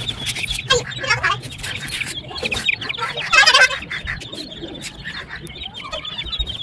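Young chickens cheeping over and over in short high calls, with a louder run of calls about three and a half seconds in.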